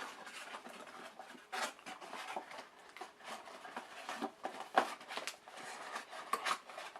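Handling noises from fiddling with a computer part and its box: an irregular run of rustles, light knocks and clicks, with a sharper knock just before five seconds in.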